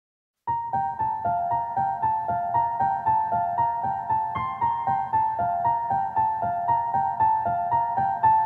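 Solo piano begins about half a second in, playing a steady, repeating figure of mid-to-high notes at roughly three notes a second.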